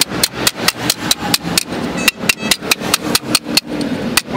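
Small hammer tapping rapidly and steadily on a strip of sheet metal laid on a wooden block, about four to five blows a second, with a brief metallic ring about halfway through.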